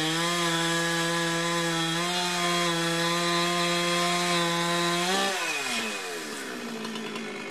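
Chainsaw mounted on a wheeled log-cutting cart running at high revs with a steady high engine note, then throttling back about five seconds in, its pitch falling away to a lower running note.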